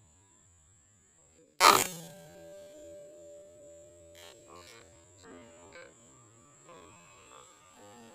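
A single sharp air-rifle shot about a second and a half in, followed by a steady low hum with a few faint clicks.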